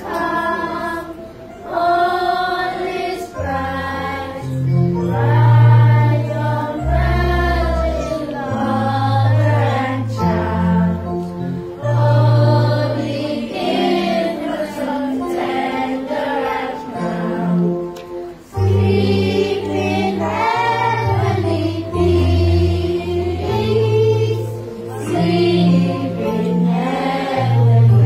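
Children's choir singing, with sustained low bass notes underneath that change every second or so.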